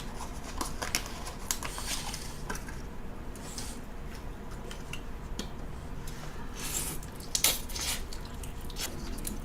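Takeout containers and utensils being handled: scattered light clicks and taps of plastic and chopsticks, with brief rustles around the middle and near the end.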